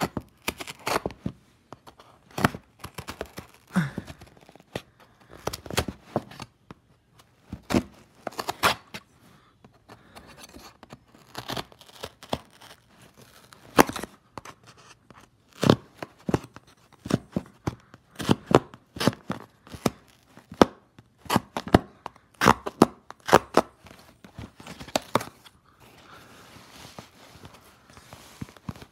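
A knife stabbing and sawing through a cardboard cereal box: many irregular sharp stabs with scraping and tearing of the cardboard between them.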